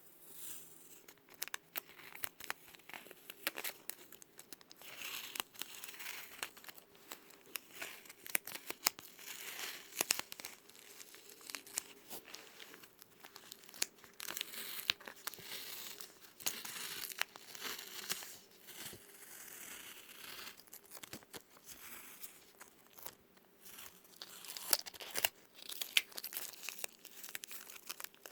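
Adhesive tape being peeled, with an irregular run of sticky crackles and short tearing rasps.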